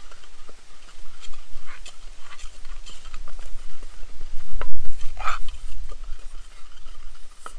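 Kitchen utensils clinking and scraping irregularly during food preparation, with one louder knock about four and a half seconds in.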